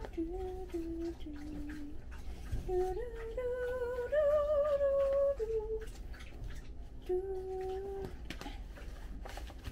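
A woman humming a tune in three short phrases of held notes stepping up and down, the middle phrase highest and loudest with a wavering note. Faint crinkling of fabric packaging under it as a sheet set is unwrapped.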